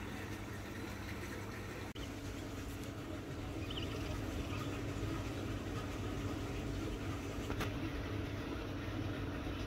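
A steady low hum with a faint steady tone running through it, over a light hiss. The sound cuts out for an instant about two seconds in.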